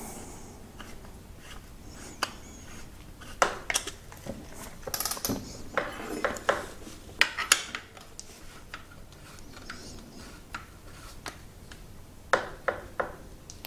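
Allen key clicking and scraping in the heads of steel motor-mount bolts as they are screwed in by hand: irregular light metallic clinks and rubs, with a few louder clicks.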